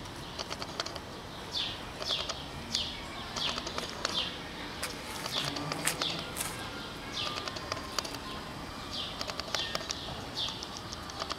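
A small bird chirping: a run of short, high calls, each falling in pitch, about two a second with short pauses between runs, with scattered faint clicks.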